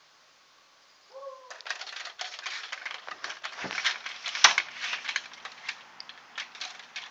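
A beagle gives one short bark about a second in. Then comes a dense, irregular run of clicks and crackles, loudest about halfway through.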